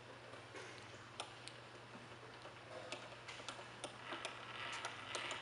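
Table power feed of a 10" x 54" vertical knee mill driving the table along: a steady low hum with irregular light mechanical ticks and clicks.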